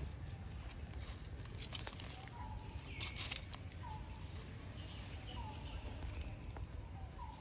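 Outdoor ambience with a faint short call repeating about every second and a half, and a brief rustle about three seconds in.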